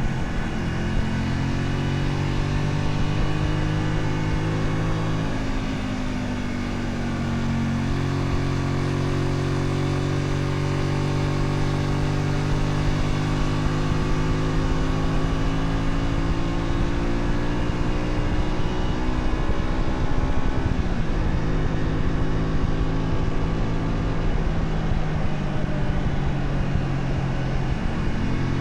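Honda Shadow 125's small V-twin engine running under way, heard from the bike. Its pitch sags and climbs back about six seconds in, then drops sharply around twenty seconds in before settling steady again.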